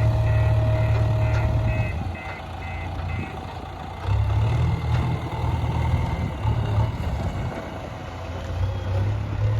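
JCB backhoe loader's diesel engine running with its reversing alarm beeping about twice a second. The beeping stops a little over three seconds in. The engine drops back, then picks up again about four seconds in and rises and falls as the machine works.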